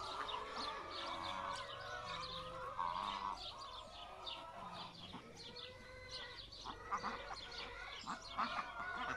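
Farmyard poultry calling: many short overlapping calls from the ducks, geese and chickens, with high chirps throughout.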